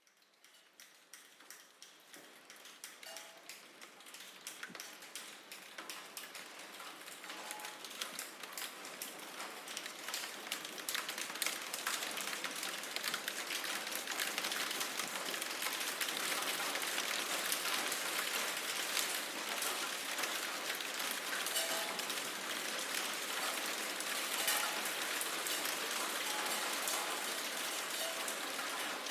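Steady rain falling, with many separate drops striking a surface; it fades in over the first ten seconds or so, then holds steady.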